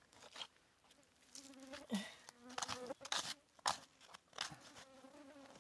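A fly buzzing close by in a steady drone that comes and goes, over a few short scrapes and crunches of dry soil being dug.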